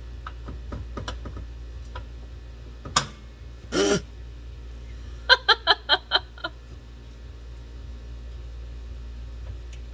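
A man's short vocal sound with a falling pitch about four seconds in, then a quick run of about six short laughs. Light clicks and knocks of hand work on the car come in the first few seconds.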